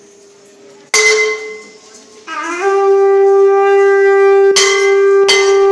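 A conch shell (shankh) is blown: a short blast about a second in, then a long note that slides up and holds steady. Near the end a bell is struck twice, about every 0.7 seconds, over the held conch note.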